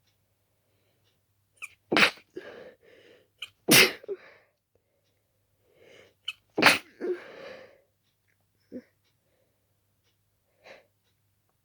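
A person sneezing three times in quick succession, about two seconds apart, each sneeze led by a short sharp intake of breath and trailed by softer breathy sound; wet, stuffy sneezes from an itchy nose, an allergic reaction to dust. Two faint breaths follow near the end.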